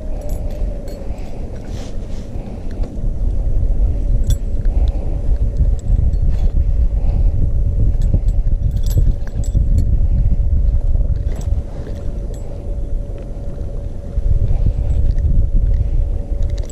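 A small boat's motor running steadily: a low rumble under a constant even whine, with a few light clicks and knocks scattered through.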